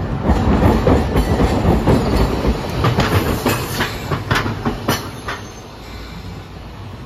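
Hiroden tram car 712 passing close by, its wheels rumbling over the junction's crossing track, with a quick run of sharp clacks about three to five seconds in. The sound fades as the tram moves on.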